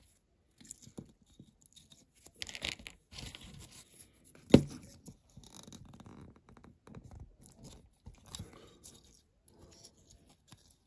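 Fingers working a small plastic dashboard part into a diecast metal model car body: light scraping and rustling handling noise with a few small clicks, and one sharp knock about four and a half seconds in.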